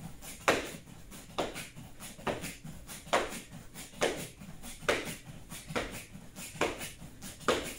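Bare feet landing on foam floor mats during jumping jacks, a sharp thud about once a second in a steady rhythm.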